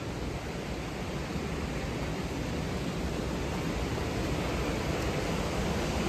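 Steady rush of a waterfall's falling water, growing slowly louder.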